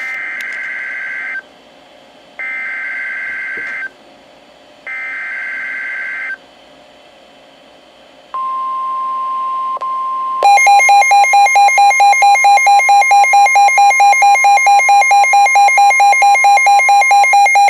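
NOAA Weather Radio Emergency Alert System header on a Midland WR120B weather radio. It opens with three short bursts of screechy digital SAME data tones for a Severe Thunderstorm Warning. The steady Warning Alarm Tone follows, and about two seconds later the radio's own loud, fast pulsing alarm beep starts over it.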